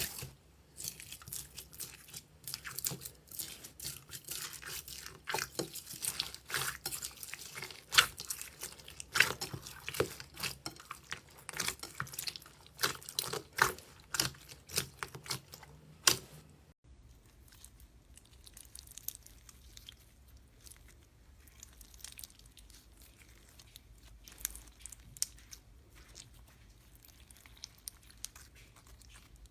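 Slime being squeezed and kneaded by hand, making a dense run of small clicks and pops. After a cut about two-thirds of the way in, fainter, sparser clicks follow.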